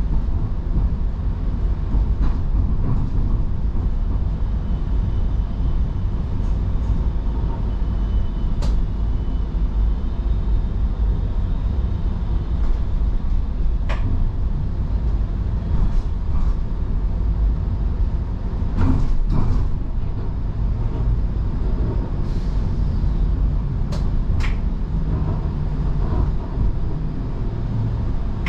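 Steady low rumble inside a TTC streetcar, with scattered clicks and knocks, the strongest a couple of knocks about two-thirds of the way through.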